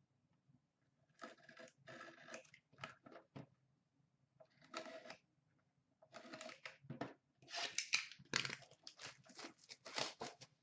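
Shrink-wrap being slit and torn off a sealed box of hockey cards, with the cardboard box handled: a run of short crinkling, tearing rustles, busiest and loudest in the last few seconds.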